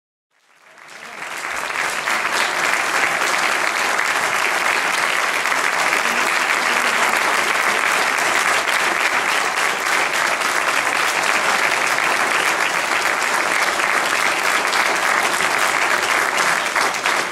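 Audience applauding steadily, a dense clapping crowd that fades in over the first couple of seconds.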